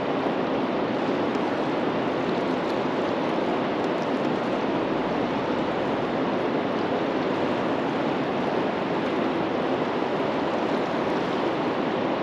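Steady rush of moving river water: an even, unbroken noise with no pauses or changes in level.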